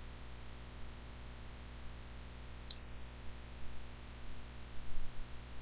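Steady low electrical hum and faint hiss of the recording setup, with a few faint clicks and one short, sharp high tick about halfway through.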